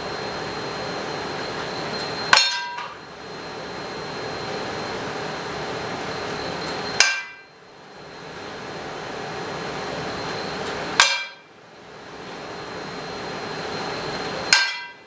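Frying pan held by a Barrett WAM robot arm clanging with a short metallic ring four times, about four seconds apart, as the arm jerks it to toss the pancake; a steady machine hum with a faint high whine runs underneath.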